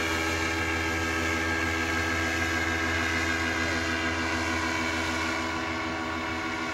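Paramotor engine and propeller droning steadily overhead, the pitch sinking slightly and the sound fading a little near the end as it flies away.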